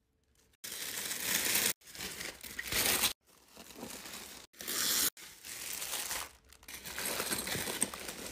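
Tissue paper and packaging crinkling and rustling as a box is unpacked by hand, in several loud bursts that stop and start abruptly.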